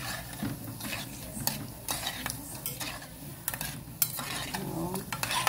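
Bolinhos de chuva frying in hot oil in an aluminium pot: the oil sizzles steadily while a metal spoon stirs the dough balls and clinks irregularly against the pot, with one sharper clink about four seconds in.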